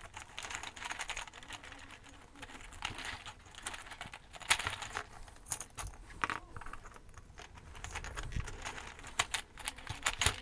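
Small plastic Christmas ball ornaments clicking and rattling against each other and a metal wire star frame as they are pushed into place. An irregular run of light clicks, with a few louder knocks.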